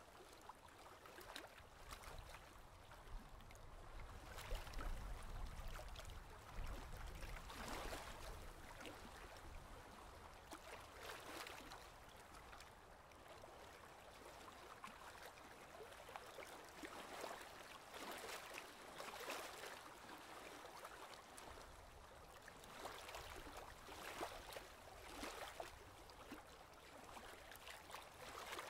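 Faint kayak paddle strokes: the blades dipping and pulling through the water in soft splashes every second or two.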